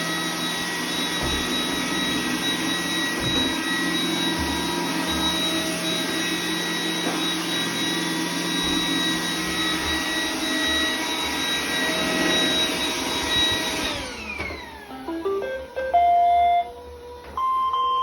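iRobot Roomba 980 robot vacuum running steadily with its suction motor and brushes, then winding down with a falling whine about fourteen seconds in. It then plays a few short electronic beeps.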